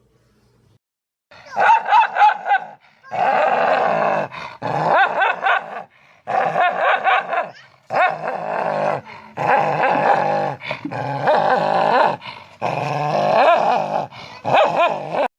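A dog growling and barking in several bouts with short breaks between them, stopping abruptly at the end.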